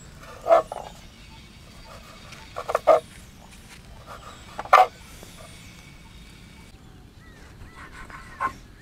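A dog barking several times: single barks spaced a few seconds apart, with a quick double bark near the three-second mark.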